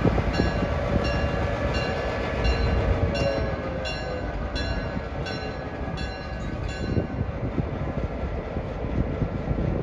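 Railroad crossing warning bell dinging about twice a second, stopping about seven seconds in, over the low rumble of a diesel locomotive's engine running.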